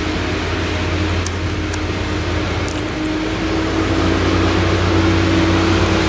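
Claas Jaguar 970 forage harvester chopping maize through its Orbis 750 header, together with the Case IH tractor pulling the silage trailer alongside: a steady mix of engine drone and chopping noise that grows a little louder about two-thirds of the way through.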